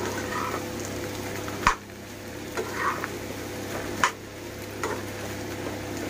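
Slotted metal spatula stirring mashed-potato bhaji in a frying pan, knocking and scraping against the pan a few times, sharpest about one and a half seconds in, over a faint steady hiss of the bhaji cooking.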